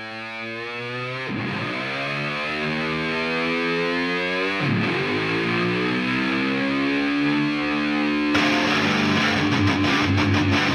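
Background rock music: a song fades in on held, distorted electric guitar notes that bend in pitch, and drums and the full band come in about eight seconds in.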